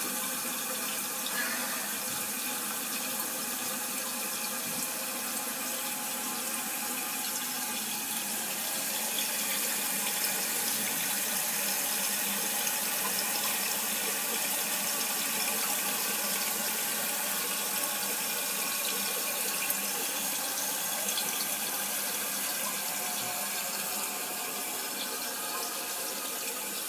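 Toto toilet tank refilling through its fill valve after the water supply is turned back on: a steady hiss of running water.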